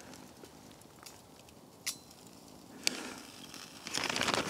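Two light metallic clicks about a second apart as a sausage is set down on a Firebox stove's steel grill plate, the first with a brief ring. Near the end a plastic bag crinkles.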